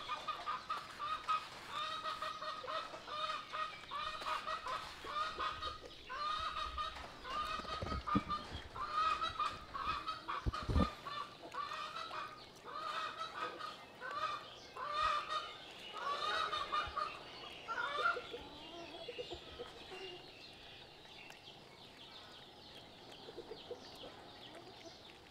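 Rapid, repeated short clucking calls from an animal, most likely a fowl. They run on for most of the stretch, then fade away. Two dull low thumps come partway through.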